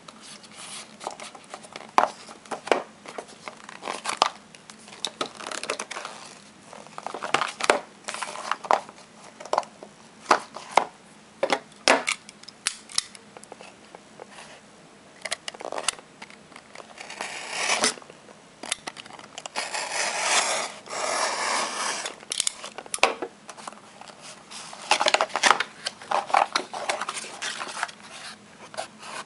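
Paper packaging being torn open and crumpled by hand, with a small cardboard box handled: scattered rustles, crinkles and light taps. There is a longer stretch of tearing and crinkling a little past the middle, and another near the end.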